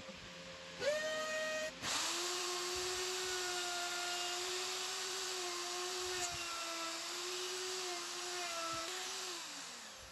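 Makita M3600 plunge router's motor whining as it cuts into a hardwood workbench leg to rough out a mortise. A short burst starts about a second in, then the router runs steadily for about seven seconds and winds down with a falling pitch near the end.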